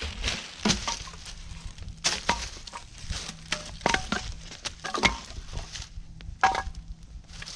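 Dry wood cracking and snapping: a string of irregular sharp cracks and knocks, several of them louder than the rest.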